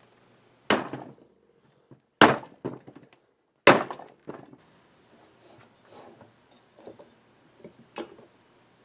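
Three loud, sharp knocks about a second and a half apart, each followed by smaller clatters, then lighter scattered knocks with one more sharp one near the end.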